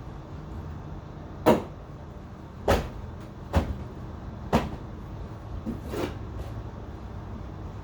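Five sharp knocks and clunks about a second apart, the first the loudest.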